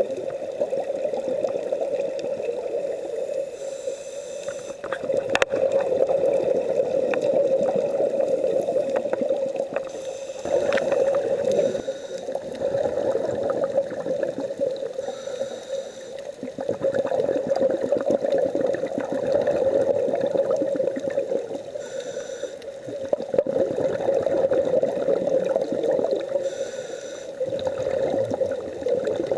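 Scuba breathing heard underwater: bubbly gurgling from regulator exhalations that swells and fades every few seconds, with short hisses of inhalation between them, over a steady hum.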